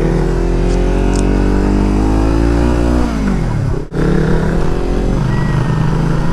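Motorcycle engine running at speed. Its note holds, then falls for about a second near the middle. After a brief break it runs steady again.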